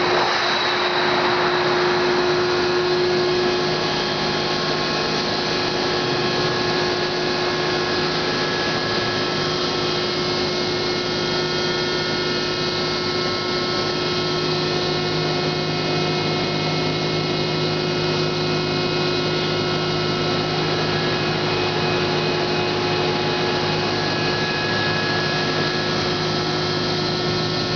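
Hydraulic pump and 50 HP motor of a 385-ton Accurpress hydraulic CNC press brake running steadily, a constant machine hum with a whine on top that drops a little a few seconds in.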